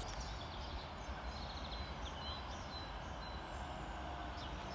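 Faint outdoor ambience: a steady low rumble and hiss, with a few short, faint high bird chirps scattered through it.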